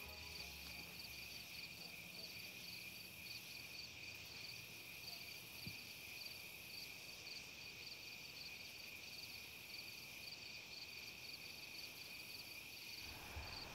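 Faint night chorus of crickets: one steady high trill with a second, pulsing chirp sounding above it.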